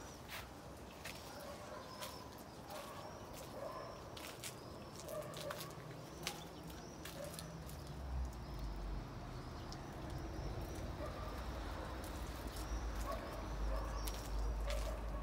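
Outdoor ambience of small birds chirping, with scattered sharp clicks. A low rumble comes in about halfway through.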